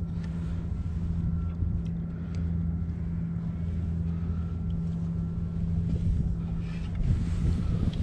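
Small outboard motor on a micro skiff idling, a steady low hum with an even pitch.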